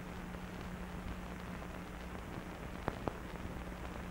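Steady hiss and low hum of an old film soundtrack, with two faint clicks a fraction of a second apart about three seconds in.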